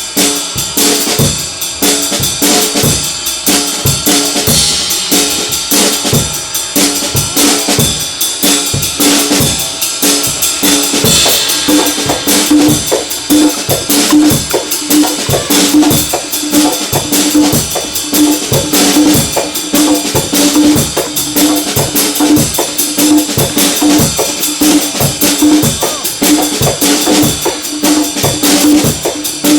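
Background jazz music with a steady drum-kit beat; from about twelve seconds in, a repeating bass note joins the beat.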